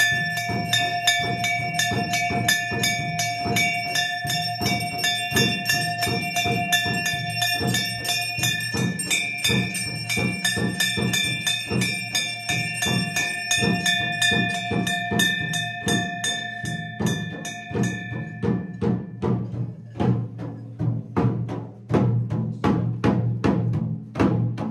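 Temple aarti music: bells ringing continuously over a fast, even drumbeat. The bell ringing stops about three-quarters of the way through while the drumming carries on.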